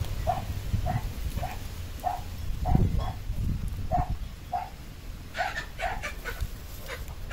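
An animal giving short, repeated calls, a little under two a second.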